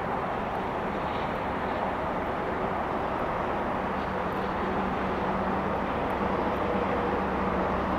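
Diesel locomotives of an approaching freight train working under power: a steady engine drone and rumble that grows slightly louder in the second half.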